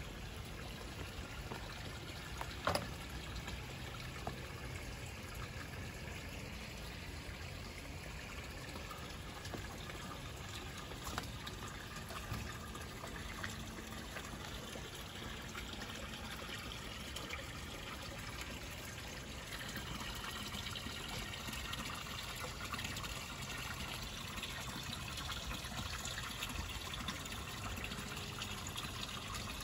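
Water steadily trickling and splashing into a small koi pond from an inflow falling onto the surface, growing a little louder in the last third. A couple of brief sharp knocks stand out, the loudest about three seconds in.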